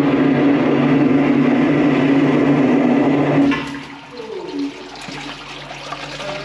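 Van-mounted high-pressure drain jetter running at about 3000 psi, a loud steady drone with water rushing. About three and a half seconds in it cuts out suddenly and winds down with a falling whine, leaving water splashing and trickling. The jetter is shut off by its foot pedal because the jetting hose end fitting has just blown off.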